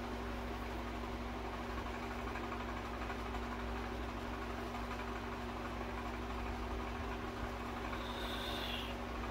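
Steady low background hum with a constant low tone, with a brief faint high tone near the end.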